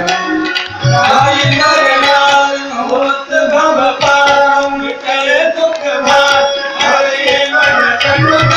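Devotional aarti song: a voice singing over sustained accompanying notes and a tabla-like drum beat. The low drum strokes drop back in the middle and pick up again near the end.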